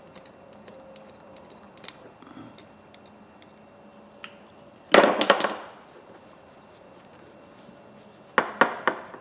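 Tools and the pliers handled on a workbench: faint scattered clicks, a loud clatter lasting about half a second about five seconds in, and a quick run of sharp knocks near the end.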